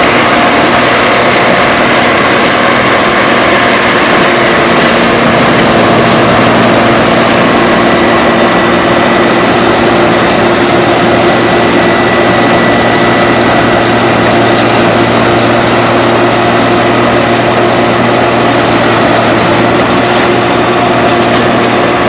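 Engine of road-repair machinery running steadily: a constant, loud mechanical drone with several steady tones over a dense hiss.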